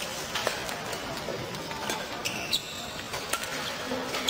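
Badminton rally: sharp racket strikes on the shuttlecock, roughly once a second, echoing in a large sports hall. About two seconds in come short high squeals, fitting court shoes gripping the floor.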